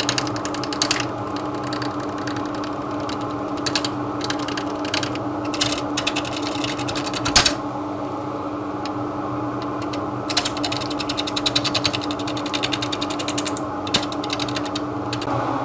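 Wood lathe running steadily with a large oak platter blank, a turning tool held against the spinning wood and rattling off it in fast runs of ticks and chatter as it bites the out-of-round, wobbling blank. There is one sharp knock about halfway, and the chatter thins for a few seconds before it picks up again.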